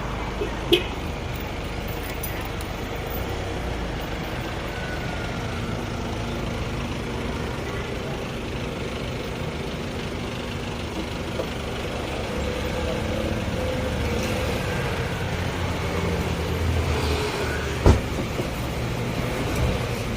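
Road traffic: vehicles running past, with a low engine rumble building in the second half and a sharp knock near the end.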